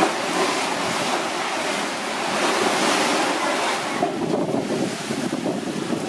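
Rough sea surf washing onto the shore, with wind buffeting the microphone and a faint steady hum underneath.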